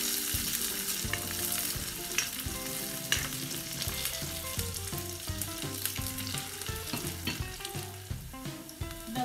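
Sliced cabbage and onion sizzling in hot oil in a wok as a wooden spatula stirs and tosses them, with two sharp knocks of the spatula against the wok about two and three seconds in.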